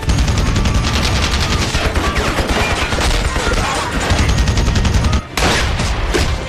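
Sustained automatic gunfire in a movie battle soundtrack: rapid shots packed into one continuous volley, with a brief break about five seconds in.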